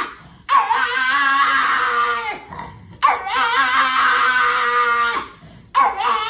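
Pug howling: three long howls with short breaks between them, each opening with a wavering pitch and then held steady.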